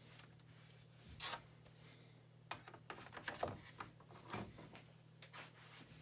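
Faint handling noises of a keyboard: scattered short rubs and light clicks, the busiest in the middle, over a steady low electrical hum.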